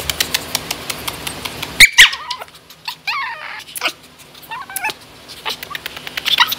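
Shih Tzu making short, high whining cries while being held and squirming, with handling knocks and rustles close to the microphone, one loud knock about two seconds in.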